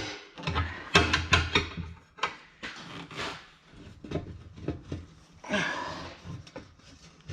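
Steel tire bar clanking and scraping against the wheel rim and tire machine as it is pried out from under the tire bead, with a quick run of sharp metal knocks about a second in.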